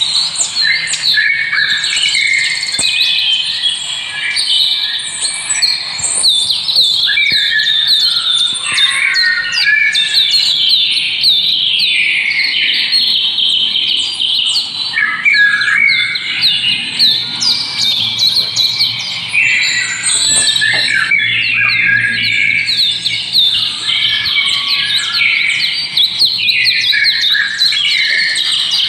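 A dense chorus of small birds chirping, many short high calls overlapping without pause.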